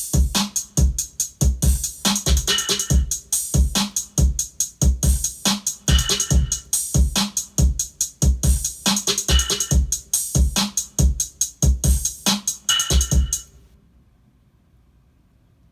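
Programmed electronic drum beat playing back from the software, a MIDI pattern triggering a Kontakt drum kit: steady kick drum and hi-hats with a recurring high ringing tone. It stops abruptly about 13 seconds in, leaving near silence.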